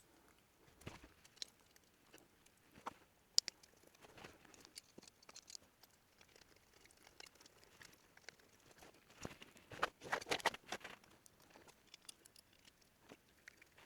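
Faint, scattered clicks, taps and light scrapes of small metal engine parts being handled as a motorcycle generator is fitted back onto the engine, with a sharp click about three and a half seconds in and a short burst of rattling clicks around ten seconds in.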